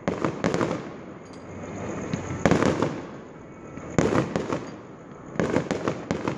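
Fireworks display: sharp bangs of shells bursting overhead, coming in several clusters a second or two apart, with the echo rolling on between them.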